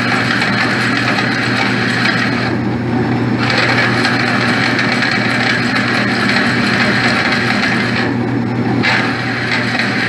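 Myford 254 lathe running, spinning the hub while a one-inch drill bores out the rusted axle shaft: a steady motor hum under a grinding cutting noise. The higher cutting noise drops away briefly twice, about two and a half seconds in and again about eight seconds in.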